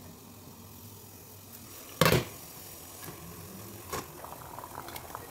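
Tins and cookware being handled on a stovetop: a sharp knock about two seconds in, a softer one near four seconds, then a few light clicks, over a steady low hum.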